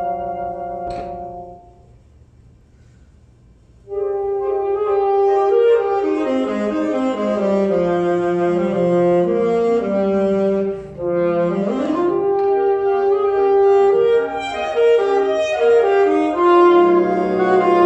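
Alto saxophone with a symphonic band. A band chord dies away about two seconds in. After a short pause the alto saxophone plays a fast running solo passage that sweeps quickly upward about twelve seconds in, and the band comes back in with a held low chord near the end.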